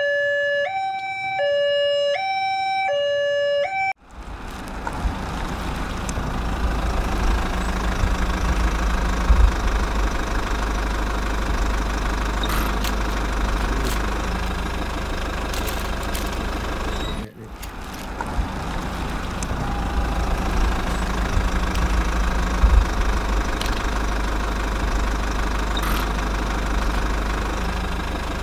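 Level-crossing warning signal, two tones alternating high and low about twice a second, cut off abruptly about four seconds in. Then a steady low vehicle engine rumble with scattered clicks.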